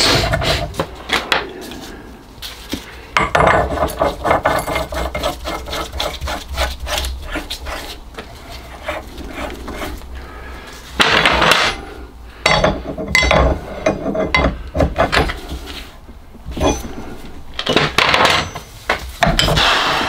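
Rapid metal clicking and scraping as a threaded valve part is screwed by hand into a cast clack valve housing held in a bench vice, the threads running a little tight. Several louder rubbing bursts come in the second half.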